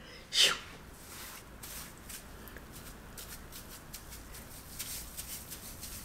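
Hands working foaming curl mousse through wet curly hair: faint, scattered rubbing and squishing, with one brief louder hiss about half a second in.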